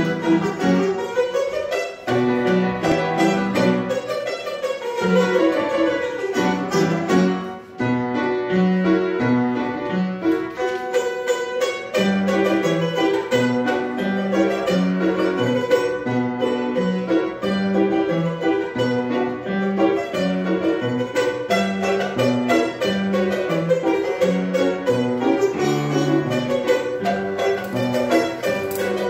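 Azerbaijani tar and upright piano playing a tune together: quick plucked tar notes carry the melody over piano chords and bass, with short breaks between phrases about two seconds in and again near eight seconds.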